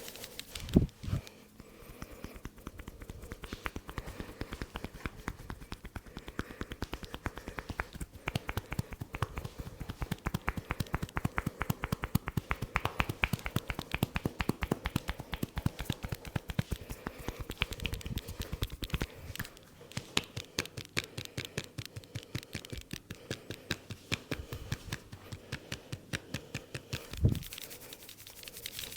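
A masseur's hands making rapid, rhythmic percussive taps during an Indian head massage, several strikes a second. A heavier thump comes about a second in and another near the end.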